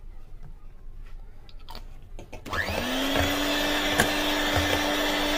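Electric hand mixer switched on about halfway through, spinning up to a steady whine as its beaters whip a creamy egg-and-sugar cake batter, with a few knocks during the run.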